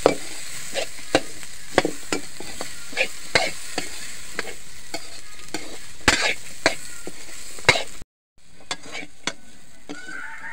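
Beans, peas and masoor dal frying in hot oil in a metal kadai with a steady sizzle, while a metal spoon stirs them, scraping and clinking against the pan at irregular moments. The sound drops out briefly about eight seconds in and comes back quieter.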